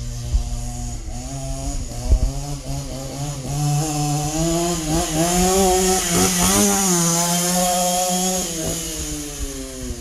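Go-Ped Trail Ripper scooter's small two-stroke engine revving under throttle, its buzz climbing about a second in, holding high and wavering through the middle, then easing off near the end.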